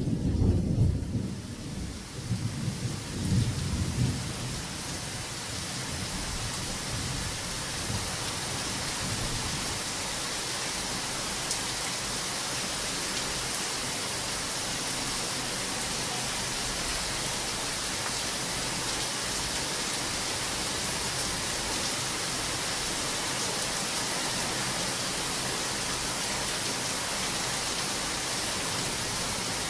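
Thunder rumbling in a few rolls and fading away over the first several seconds, then heavy rain falling steadily.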